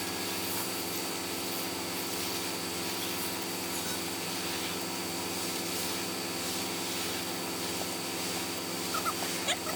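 A machine running at a steady speed with an even, unchanging drone. A few short high squeaks come near the end.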